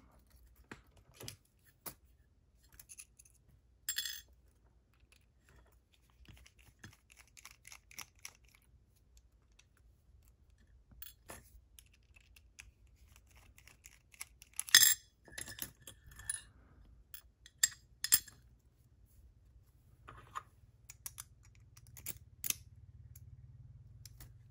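Scattered small metallic clicks and clinks of lock picks and a dimple lock cylinder being handled and taken apart, with one louder clack a little past the middle.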